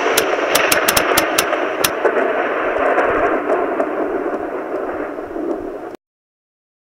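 Edited-in sound effect over an animated sponsor logo: a steady rushing noise with a quick run of about eight sharp cracks in the first two seconds, cut off abruptly about six seconds in.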